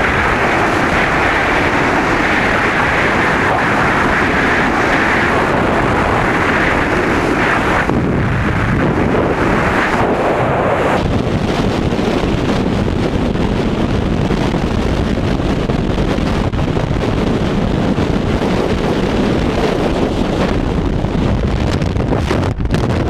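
Freefall wind rushing over and buffeting an action camera's microphone during a tandem skydive: a loud, steady roar of wind noise whose tone shifts about eight and eleven seconds in.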